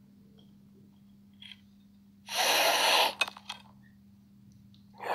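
A person snorting hard through the nose from a plate of powder: one loud, sharp snort lasting under a second, a little over two seconds in, followed by a few faint clicks. Another loud breath starts right at the end.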